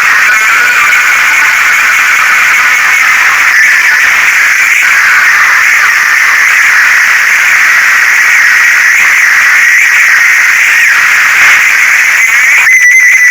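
Very loud, distorted hissing noise with a wavering high tone running through it.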